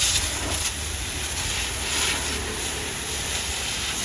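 High-pressure water jet spraying onto a JCB backhoe, a steady loud hiss, with a low steady rumble underneath.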